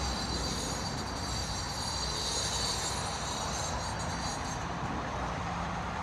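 Steady mechanical noise with a high, thin whine over it that fades out about four and a half seconds in.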